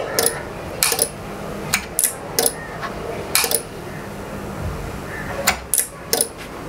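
Super Sonic automatic voltage stabilizer switched on and off again and again: its rocker switch and the relays inside click sharply, a dozen or so clicks in pairs and clusters, with a low hum that comes and goes. The relay clicking is the sign that the stabilizer's circuit is again getting its 12 V supply now that the failed 7812 regulator has been replaced.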